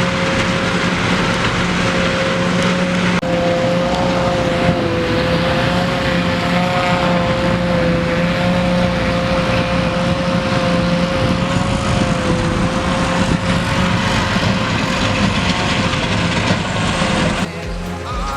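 Massey Ferguson 6465 tractor working under load with a trailed JF900 forage harvester lifting first-cut silage. A steady machinery whine runs over the engine noise, wavering a little in pitch, and the sound drops away near the end.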